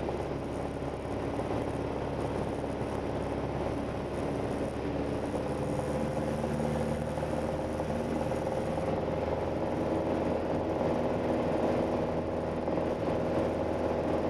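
Light single-engine airplane's four-cylinder piston engine and propeller running steadily in cruise flight, a constant drone.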